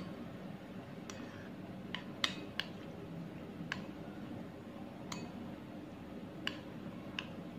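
A plastic spoon stirring yogurt raita in a bowl, knocking against the bowl in about eight light, scattered clicks over a faint steady hum.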